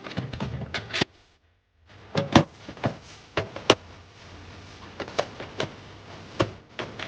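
A run of clicks, taps and knocks from containers and food items being handled and set down while a freezer is stocked, with a short dead-silent gap about a second in.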